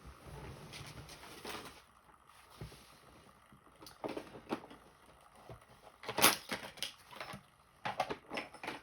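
Small hard objects being handled on a workbench as a pin-tumbler lock is readied for disassembly: a soft rubbing at first, then scattered clicks and knocks, loudest about six seconds in.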